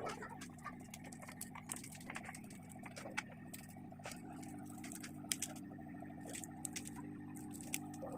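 Scattered light clicks and taps of small tools and plastic and metal phone parts being handled during a smartphone teardown, over a steady low hum that gains a steady tone about four seconds in.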